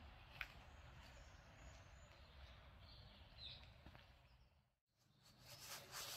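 Near silence: faint outdoor background hiss with a single faint chirp about three and a half seconds in, a brief dropout, then soft scuffing and handling noises near the end.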